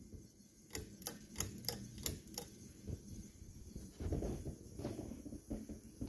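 Hunter Santa Barbara ceiling fan running with a faint steady hum. In the first couple of seconds come about six light clicks, roughly three a second, and a soft low rumble follows near the end.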